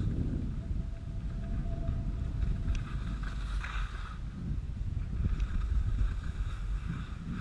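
Wind rushing over the microphone during a fast downhill run on snow, a low irregular rumble, with the hiss and scrape of edges sliding over packed snow swelling at times.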